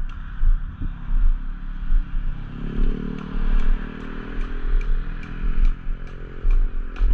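Motorcycle engine running on the road, its note coming up about two and a half seconds in, with wind buffeting the microphone. A regular light ticking, about two and a half times a second, runs through the second half.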